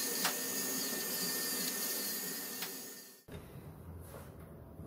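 A handheld rotary tool running with a grinding bit against the edge of an iPhone XS Max's stainless-steel frame: a steady high hiss with a thin whine. It stops abruptly about three seconds in, leaving only a few faint handling clicks.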